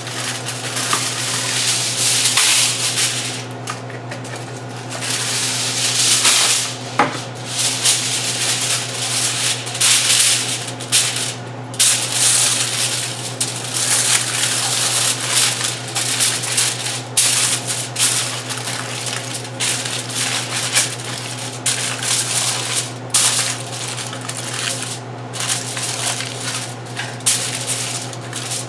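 Aluminium foil crinkling and crackling in uneven bursts as hands crumple, press and fold it over a pizza pan.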